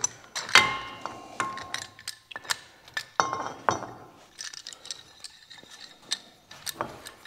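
Steel C-clamp being unscrewed and lifted off a brake caliper after pushing the pistons back, with irregular metal clinks and taps as the clamp knocks against the caliper. A few of the clinks ring briefly.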